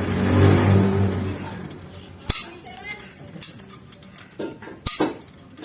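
Sharp metallic clicks and clinks, five or so spaced about a second apart, from small metal parts of a gas stove being handled and knocked together.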